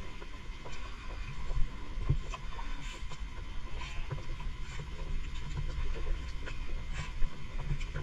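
A boat's engine running: a steady low rumble with scattered clicks and knocks.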